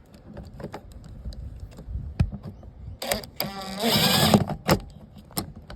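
Small clicks and taps of hardware being handled, then a cordless drill whirring for about a second and a half about three seconds in, followed by a few sharp clicks.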